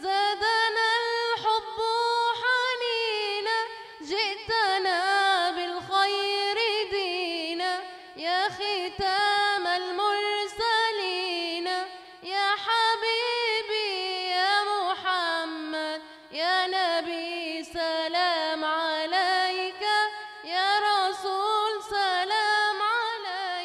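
A woman singing an Arabic nasheed in praise of the Prophet, unaccompanied, in long phrases with wavering, ornamented pitch and short breaths between them.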